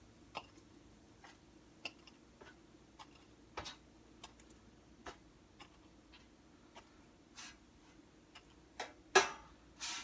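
Scattered, irregular light clicks and taps of small objects being handled, with a louder knock and a brief scraping rustle near the end.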